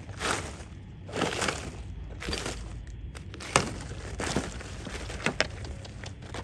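A series of irregular crunches and cracks, about six in all, with a sharper crack about three and a half seconds in: dry material being crushed and broken apart by hand.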